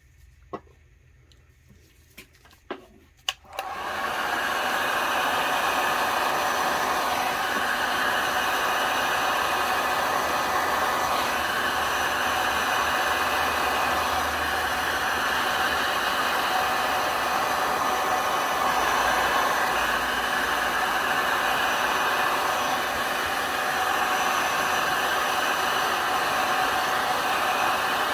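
A few light clicks, then an electric hot-air blower switches on and runs with a steady rushing whir, blowing across wet alcohol ink on a tumbler to push it around.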